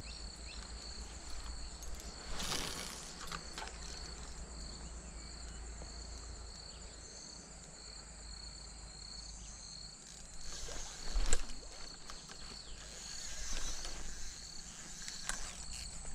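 Insects chirping in a steady, regular pulsing rhythm, with a few scuffs and crunches of footsteps on dirt and stones, the loudest about eleven seconds in.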